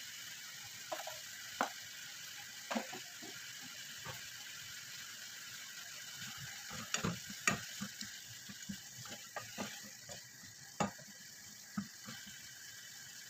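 Wooden spoon stirring meat and vegetables in a nonstick saucepan, with irregular knocks and scrapes of the spoon against the pan over a steady sizzle of food frying.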